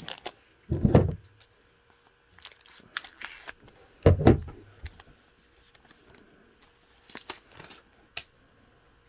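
Trading card pack wrapper being torn open and handled, with scattered crinkles and clicks and two dull thumps, about a second in and about four seconds in.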